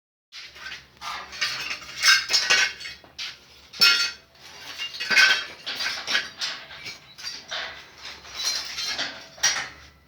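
Irregular metallic clinks, clanks and scrapes of metal parts being handled and knocked together.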